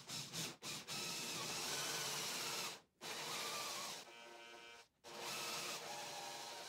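Cordless drill driving a small hole saw into plywood: a few quick trigger blips, then the motor running and the saw cutting in three runs, with short stops about three and five seconds in. The middle run goes quieter toward its end.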